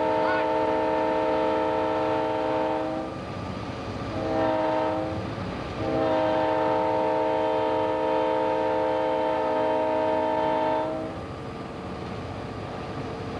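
Diesel locomotive's multi-chime air horn heard from inside the cab: a long blast ending about three seconds in, a short blast a second later, then a long blast of about five seconds. This is the close of the long-long-short-long grade-crossing warning. Steady engine and rail noise runs beneath it.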